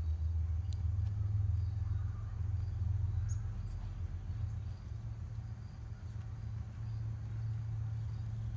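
Steady low outdoor rumble, with a single click under a second in and a couple of faint, short high chirps about three and a half seconds in.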